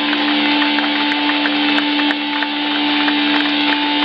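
A club crowd cheering and shouting between songs, over a steady drone from the stage amplifiers.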